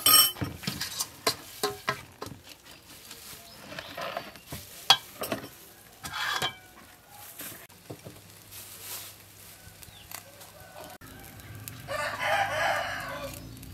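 A wooden spoon knocks and scrapes in a stainless-steel mixing bowl for the first couple of seconds. Chickens cluck, and a rooster crows for over a second near the end.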